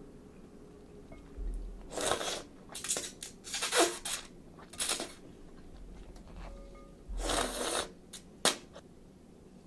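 A person slurping chilled ramen noodles in a run of short, noisy slurps, the first about two seconds in.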